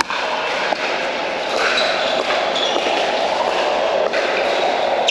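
Pickleball paddles hitting a plastic ball in a rally: a series of sharp pops about a second apart, over the steady din of a large indoor hall full of play.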